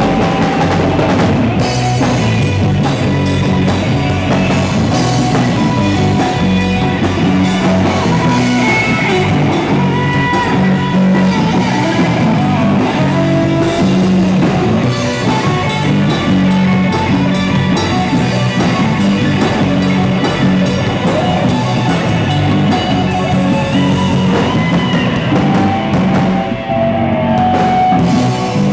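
Live rock band playing: drum kit, electric guitars and bass guitar together at full volume, with a driving bass line and steady drum hits.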